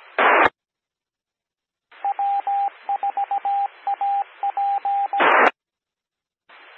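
Amateur radio repeater sending its Morse code identification: a single beeping tone keyed in long and short pieces over a hissing FM carrier. Short bursts of squelch-tail noise come as a transmission drops near the start and again right after the Morse ends.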